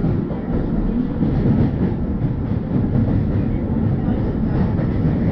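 Kintetsu express train running through an underground tunnel, heard from inside the front car: a steady low rumble of wheels on rails with faint irregular clicks.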